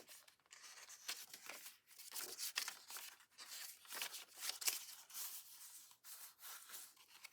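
Paper rustling and crinkling in short, irregular strokes as the pages of a handmade paper journal are handled and turned.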